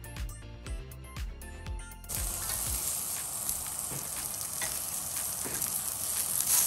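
Background music with a steady beat until about two seconds in, then a sudden change to strips of bacon sizzling and crackling on a hot ridged grill pan.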